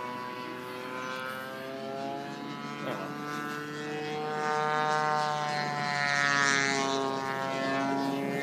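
Propeller-driven RC scale plane (Seagull Dewoitine) with a 36cc PTE gas engine and 18x10 prop in flight. The engine note drifts up and down in pitch and grows louder to a peak about six seconds in as the plane passes closer, then eases.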